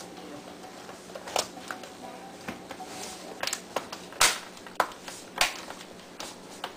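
Irregular clicks and taps from hands handling a laptop and its parts, over a steady low hum.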